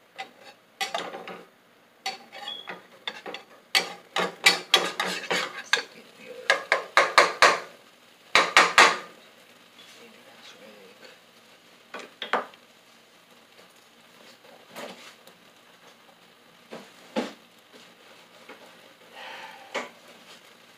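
Pancake batter being stirred in a bowl with a utensil: quick runs of clinks and scrapes against the bowl, several strokes a second, then a few single knocks in the second half.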